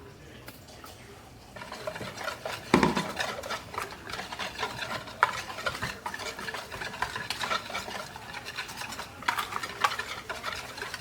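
A utensil stirring briskly in a mixing bowl, with rapid clicking and scraping against the bowl, starting about a second and a half in, and one louder knock about three seconds in.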